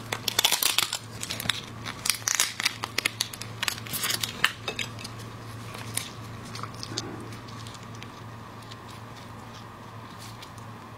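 Plastic gloves crinkling as hands crack and pull apart a piece of raw marinated crab, with shell snaps and wet tearing. The crackles come thick and fast at first and thin out after about five seconds.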